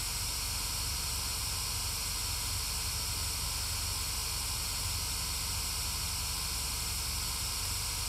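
Steady white-noise static hiss from a spirit box app, unbroken, with a low even rumble underneath.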